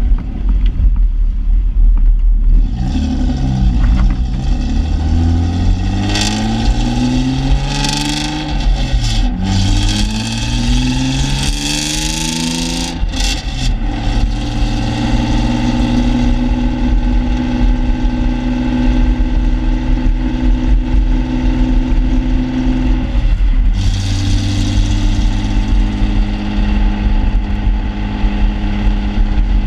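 Exhaust of a 1995 BMW E36 M3's straight-six, heard at the tailpipes through a stock muffler with its insulation removed and the catalytic converter and resonator deleted. The engine is revved up and back down several times, then held steady at raised revs, with a brief dip about two-thirds of the way through.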